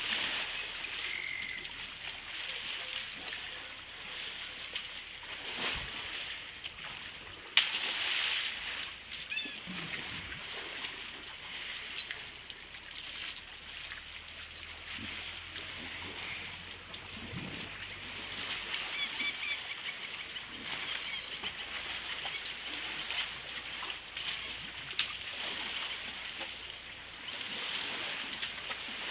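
Dense outdoor chorus of frogs croaking and birds chirping around a waterhole, with one sharp knock about seven and a half seconds in.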